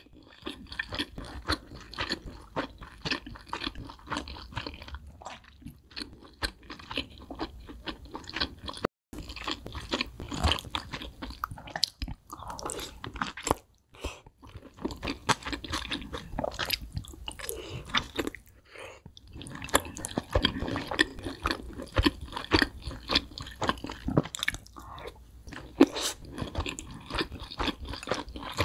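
Close-miked chewing and crunching of crispy fried chicken wings: a dense, irregular run of quick crackling bites and chews.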